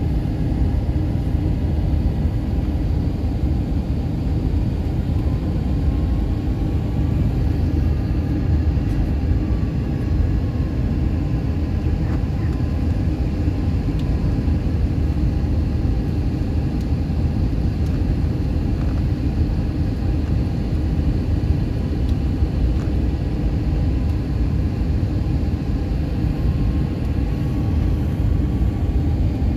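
Jet airliner cabin noise heard from a window seat: a steady, low engine and airflow rumble with a faint whine that drifts slowly in pitch.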